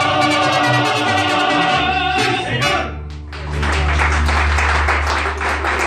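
Mariachi ensemble of violins, vihuela, guitar and guitarrón, with voices, holding the final chord of a song. It cuts off about three seconds in and is followed by clapping and applause.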